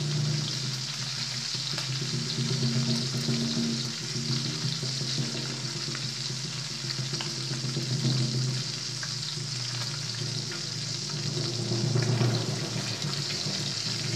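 A batter-coated tenor saxophone deep-frying in a tray of hot oil, sizzling and bubbling steadily, amplified through microphones, with a low hum underneath.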